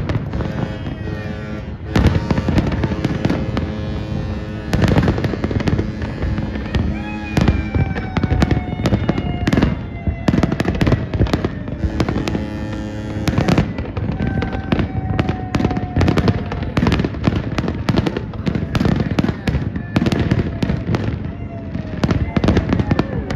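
Fireworks exploding in rapid succession: dense, loud bangs and crackles that never let up. Long, steady, deep tones are held underneath, with a few high tones that slowly fall.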